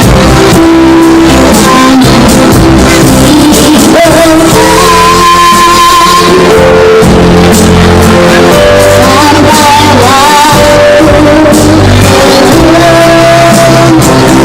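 A child singing a song solo over loud backing music with guitar, holding long notes about five and ten seconds in.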